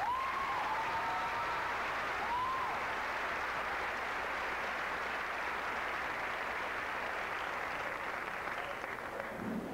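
Audience applauding, with a few short whoops in the first three seconds. The clapping eases slightly near the end.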